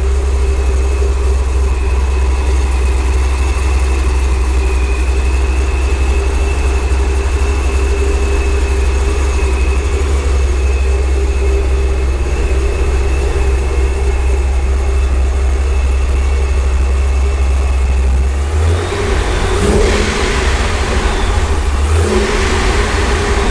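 Supercharged C5 Corvette V8 idling steadily, then blipped twice near the end. The blow-off valve, newly moved on the charge pipe, gives none of its earlier whoopee-cushion flutter.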